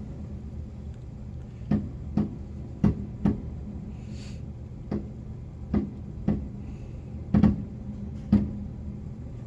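Fireworks bursting in a display: about ten sharp booms at irregular intervals, some in quick pairs, over a low steady hum.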